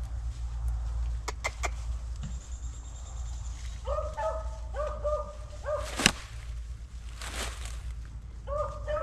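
A beagle giving short, rapidly repeated yelps, a run of about half a dozen over two seconds about four seconds in and another starting near the end. A few light clicks come early and one sharp crack about six seconds in.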